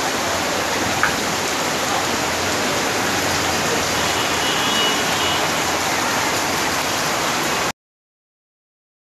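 Heavy rain falling on a flooded street, a steady hiss of rain on standing water, with one sharp click about a second in. The sound cuts off suddenly to silence near the end.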